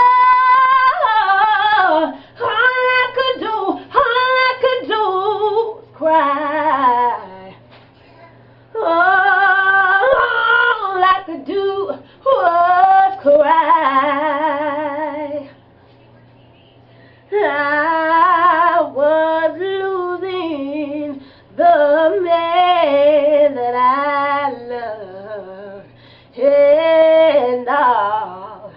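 A woman singing solo: long held, wavering notes with heavy vibrato, in phrases broken by short pauses.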